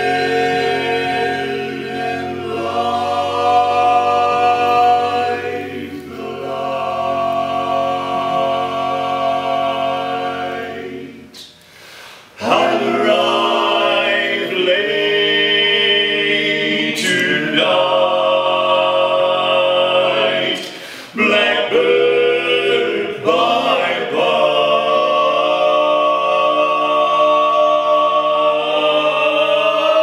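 Barbershop quartet of four male voices singing unaccompanied in close harmony, holding long chords that shift from one to the next. The singing breaks off for about a second a little before the middle, with another short break about two-thirds of the way in.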